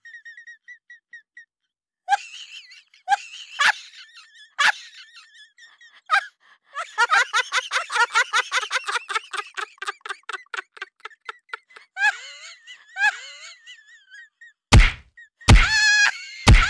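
High-pitched laughter in bursts, with one long run of rapid laughing pulses in the middle. Near the end come three loud thuds.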